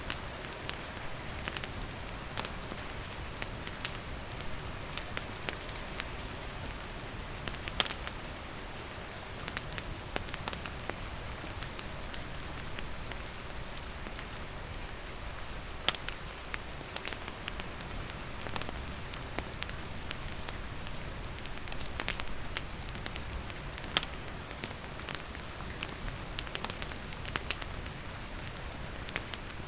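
Steady rain pattering, mixed with a wood campfire crackling in sharp, irregular pops.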